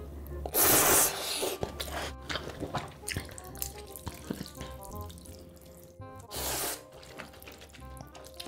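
A person slurping ramen noodles in broth, with two loud slurps about half a second long: one just after the start and another about six seconds in. Quieter wet chewing and eating sounds and soft background music fill the gap between them.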